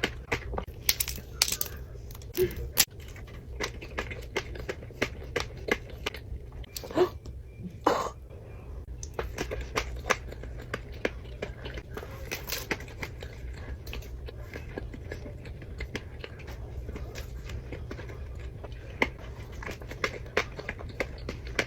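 Close-miked eating of chocolate cake: wet chewing, lip smacks and many short sharp clicks, mouth and fork sounds, with a steady low hum underneath.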